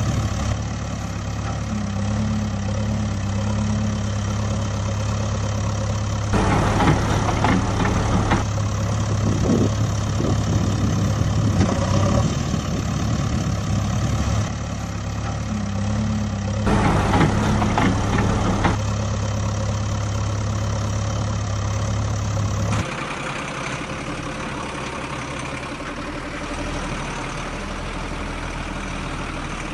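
Engine idling sound effect, a steady low hum laid over toy vehicles that have no engines of their own. It is broken twice by louder noisy stretches of about two seconds each, near 6 and 17 seconds in. About 23 seconds in it cuts to a quieter, rougher engine sound.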